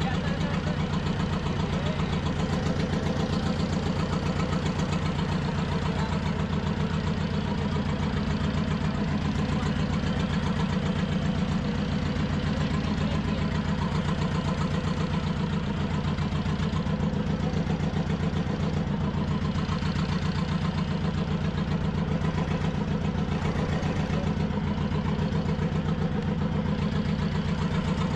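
Fishing boat's engine idling steadily, a low, rapid, even chugging.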